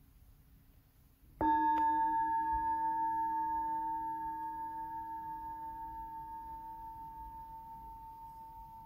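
Hand-hammered Tibetan singing bowl struck once with a wooden mallet about a second and a half in, then ringing on with one clear main tone and fainter higher and lower overtones, fading slowly with a gentle pulsing.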